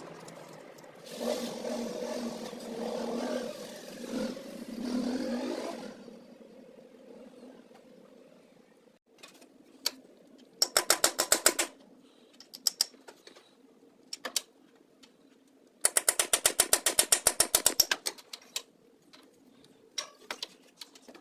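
Workshop tool noise: a few seconds of machine whirring, then two short runs of rapid mechanical clicking, about ten clicks a second, with odd single clicks between.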